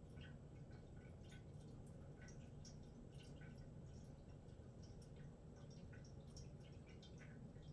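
Near silence: room tone with a low steady hum and faint, irregularly spaced small ticks.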